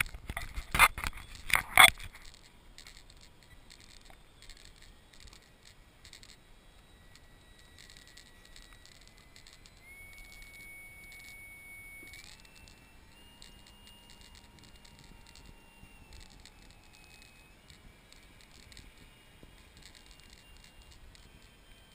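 Several loud knocks and clicks in the first two seconds, then the faint whine of radio-controlled seaplane motors as the models run across the water. The whine steps up in pitch about ten and again about twelve seconds in.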